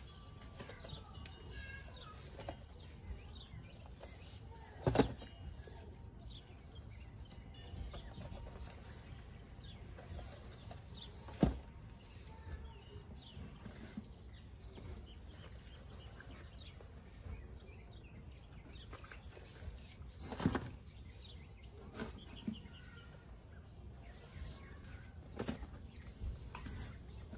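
Small cardboard boxes being handled and set down on a table: a handful of isolated knocks several seconds apart, over a steady low background with faint bird chirps.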